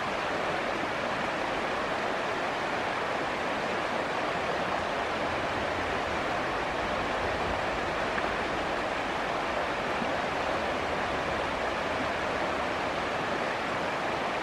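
Shallow river running fast over rocks: a steady, even rush of water with no breaks.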